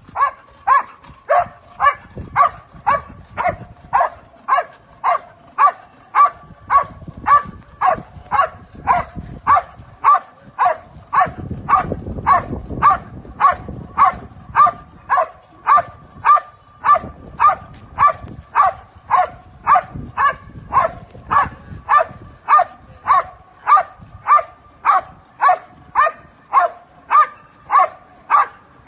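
Belgian Malinois barking steadily and rhythmically at a helper in the blind, about three barks every two seconds without a break: the hold-and-bark phase of IPO protection work.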